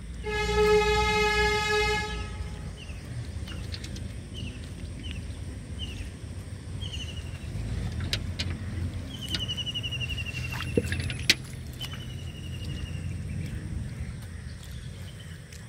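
A vehicle horn sounds one steady blare of about two seconds near the start, over a low background rumble. Afterwards a series of short, high, falling chirps follows.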